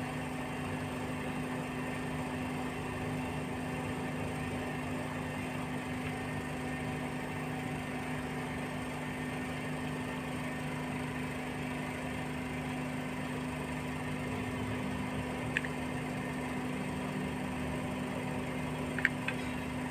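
Steady mechanical hum of a running motor with a low, even drone, unchanging throughout. A few faint clicks near the end.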